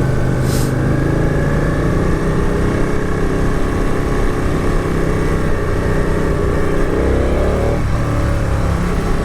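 Ducati 959 Panigale sports motorcycle engine accelerating, its pitch rising steadily, then dropping sharply at a gear change near the end before climbing again.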